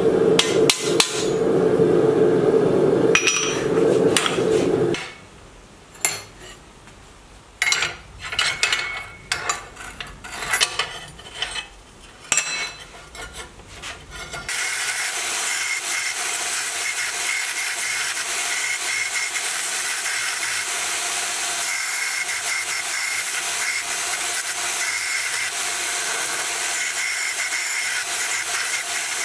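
Hammer blows on steel flat bar on an anvil for about five seconds, followed by scattered lighter knocks. Then a small bench belt sander starts and runs steadily with a faint whine while steel is ground against the belt.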